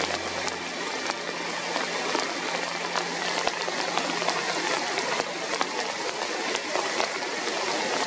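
Rain falling on a rain-swollen river: a steady hiss of rain and running water, with scattered sharp raindrop ticks. Background music fades out in the first second.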